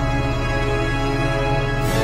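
Dramatic film score music: sustained chords held over a low bass note, with a short rush of high hiss near the end.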